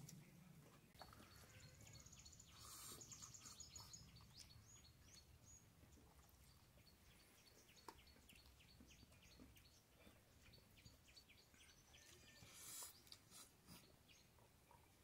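Near silence, with faint bird chirping: many short, high chirps.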